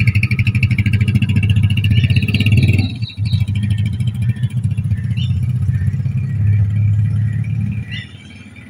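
A small motorcycle engine running as the bike pulls away and rides off, with a brief dip about three seconds in; it quietens near the end.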